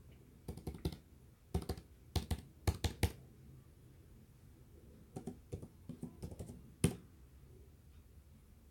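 Keyboard typing: runs of quick key clicks as text is entered, ending with one sharper tap about two-thirds of the way through.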